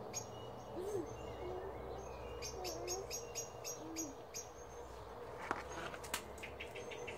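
A dove cooing in the background, a few soft low coos in the first few seconds, over a low steady hum. Several light clicks follow about five to six seconds in.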